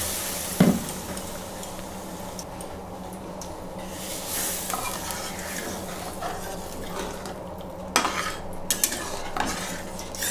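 Flat metal spatula stirring and scraping a watery masala gravy in a metal kadai, knocking against the pan: one sharp knock about half a second in, and a cluster of clinks near the end. A sizzle fades over the first couple of seconds as the freshly added water settles on the hot masala.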